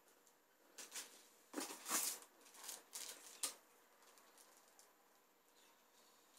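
Paper and cardboard rustling as leaflets are handled and pulled from a cardboard box. The rustles come in a short cluster, with a sharp tap about three and a half seconds in, then fade to faint handling.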